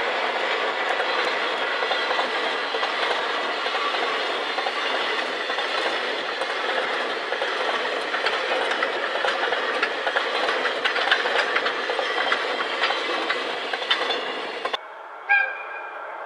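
Freight train of container wagons passing, a steady rolling rumble with frequent sharp clicks of the wheels over rail joints. Near the end the sound cuts off abruptly to a quiet hum, followed by one short pitched sound.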